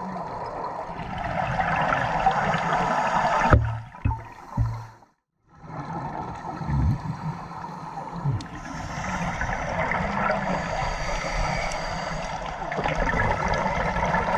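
Muffled rushing and gurgling of water around an underwater camera, with a few low thumps about three and a half seconds in and a brief dropout to near silence shortly after.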